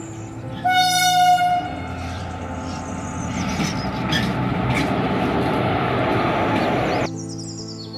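Indian Railways WAP-4 electric locomotive sounds its air horn once, for about a second, as it pulls a passenger train in. The train then rumbles past with a few wheel clacks, and the sound cuts off suddenly about a second before the end.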